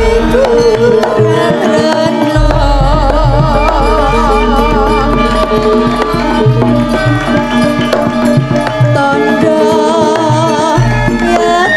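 Female Javanese sinden singing a langgam-style song with wide vibrato, over gamelan accompaniment with kendang hand drumming and a deep sustained bass.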